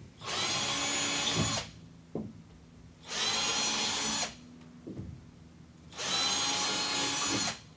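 Cordless battery drill with a 5mm bit drilling into the wall three times, each run lasting a little over a second with a short pause between, to make screw holes at pencil marks.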